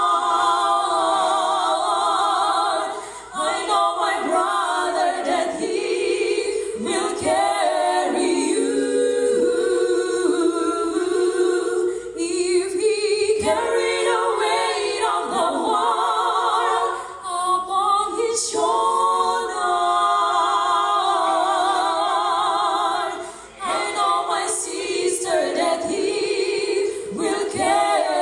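Mixed church choir singing a cappella, with the women's voices at microphones in front, pausing briefly between phrases.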